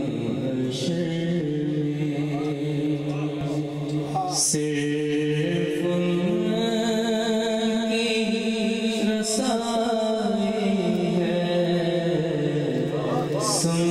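A man chanting an Urdu lament (noha) solo into a handheld microphone, amplified through a PA, in long held notes that step slowly up and down.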